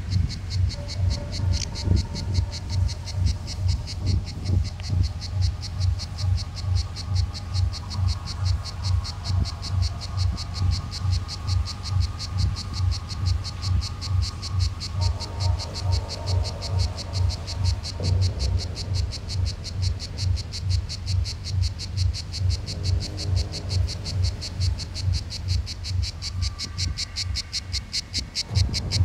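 Cicada song: a loud, fast and even pulsing buzz that carries on without a break.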